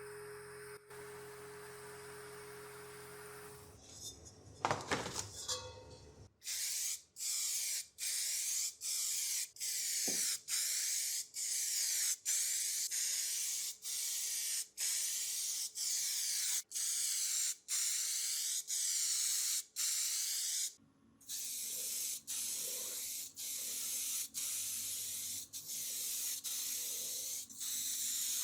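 Spray hissing in a long string of short bursts, roughly one to two a second, with sharp breaks between them. A steady low hum comes before the spraying starts, a few seconds in.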